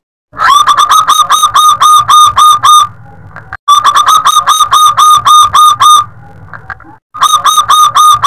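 Zebra dove (perkutut) singing: three phrases of rapid, clipped cooing notes, about four or five a second, each phrase lasting two to three seconds with short pauses between them. It is a loud-voiced local bird.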